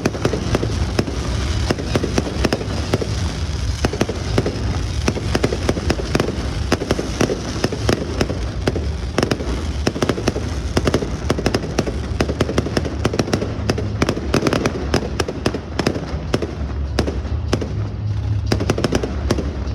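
Fireworks display: a dense, continuous crackle and pop of many bursts, getting thicker over the last few seconds.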